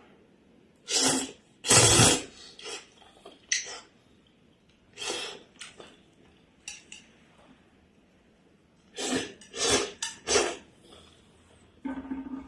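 Cookware and utensils being handled: a pot, bowl and cutlery clattering and knocking in a series of irregular short bursts, the loudest about two seconds in and a cluster near the end.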